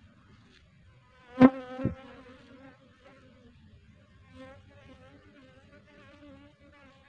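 Asian honey bees (Apis cerana) buzzing in flight around the entrance of a wooden hive, a wavering buzz that comes and goes as they pass close. About a second and a half in there are two sharp knocks, half a second apart, with a louder buzz.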